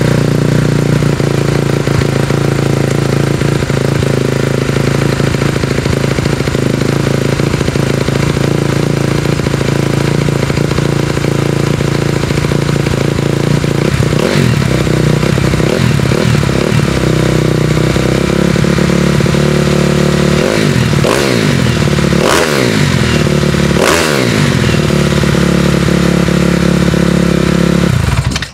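A 2012 Honda CRF250R's single-cylinder four-stroke engine idles steadily after being kickstarted. It is given three quick throttle blips, each revving up and dropping back, a few seconds apart in the second half, then is shut off and cuts out suddenly near the end.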